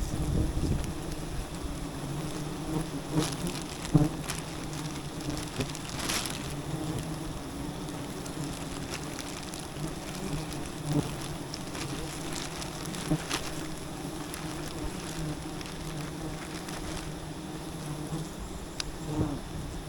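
A mass of wild honeybees buzzing steadily around a giant hive, a continuous low hum, with scattered sharp knocks and crackles, the loudest about four seconds in.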